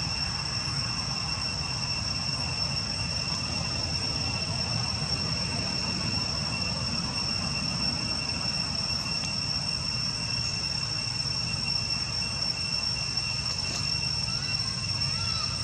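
Steady, unbroken high-pitched drone of insects, over a low rumble.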